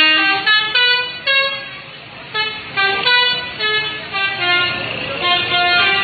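Indonesian bus 'telolet' musical horn playing a tune of short stepped notes in three quick phrases, with brief pauses between them.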